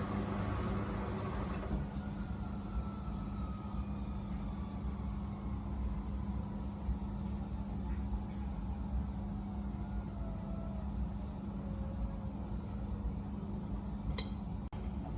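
Miele W Classic WDA211WPM washing machine running mid-cycle: a steady low motor hum with faint whines that slowly fall in pitch, and a sharp click near the end.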